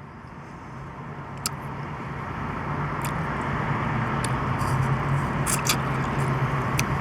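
Motor vehicle traffic noise with a steady low engine hum, growing louder over the first few seconds and then holding steady, with a few short, sharp clicks.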